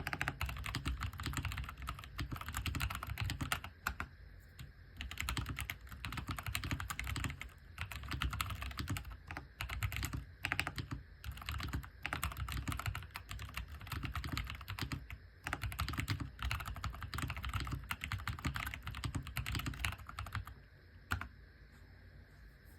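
Typing on an AJAZZ AK680 mechanical keyboard with stock brown tactile switches: continuous runs of keystrokes with a few brief pauses, stopping about twenty seconds in.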